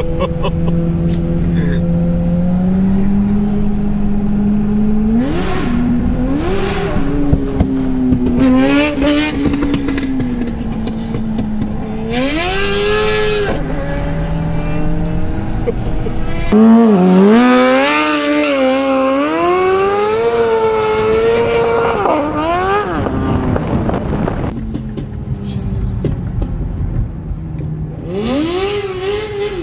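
Suzuki GSX-R1000 inline-four with a full Akrapovic exhaust revving hard again and again, its pitch climbing and dropping with each burst of throttle, heard from inside a following car. The loudest, longest run of revs comes just past halfway.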